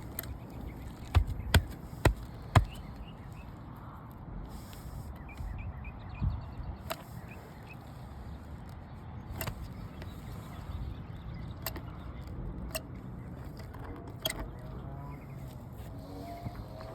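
Sharp clicks from a caulking gun's trigger, squeezed while sealant is laid under asphalt shingles to hand-seal them: four in quick succession about a second in, then single clicks every second or two. Faint bird chirps sit over a steady outdoor background.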